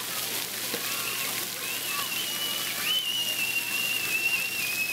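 Splash-pad water spraying and pattering in a steady hiss, with a child's long, high squeal held for about three seconds from near the middle, dipping at the end.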